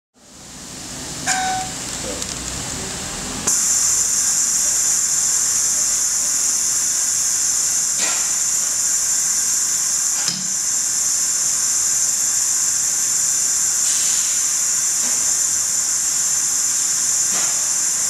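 Gramatech GVS 2100R vacuum sealer running its cycle: a loud steady hiss of rushing air starts about three seconds in and carries on through the vacuum and cooling stages. A few single clicks and a knock are heard over it, the knock near the middle.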